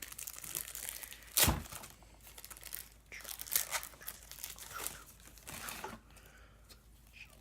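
A foil trading-card pack wrapper being torn open and crinkled in the hands. The loudest sound is one sharp crackle about a second and a half in, with more crinkling after it.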